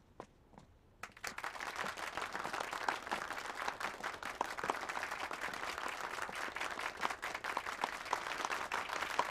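A small group of people applauding, the clapping starting about a second in and going on steadily.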